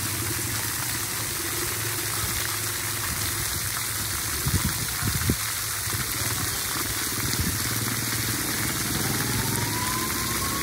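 Splash pad water jets spraying and splattering onto wet concrete: a steady hiss of falling water. A couple of low thumps come about halfway through, and a faint rising tone comes in near the end.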